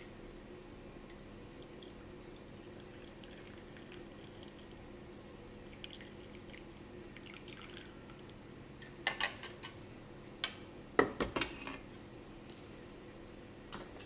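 Dishes and a utensil clinking while drinks are handled and stirred: a few faint clicks, then two clusters of sharp clinks about nine and eleven seconds in, with some liquid sounds.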